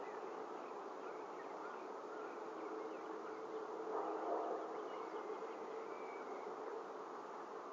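Steady droning hiss and low hum from an outdoor nest-camera microphone. About four seconds in, a brief rustle as an osprey lands on its stick nest with wings spread, with a few faint high chirps around it.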